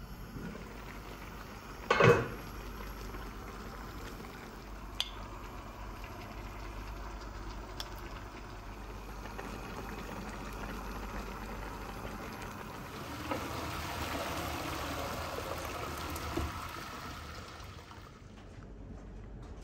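Pot of food simmering on a gas stove, with a steady bubbling that grows louder for a few seconds near the end. A metal-rimmed glass pot lid clanks once about two seconds in.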